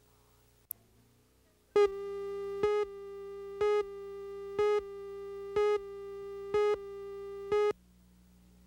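A videotape slate tone: a steady electronic tone starts about two seconds in, with a louder beep pulsing roughly once a second, and cuts off sharply near the end. A single sharp click comes before it.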